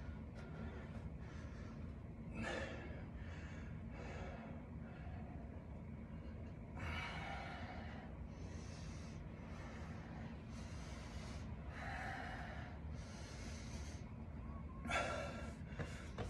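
A man breathing hard after exercise: a run of heavy breaths, coming about once a second in the second half.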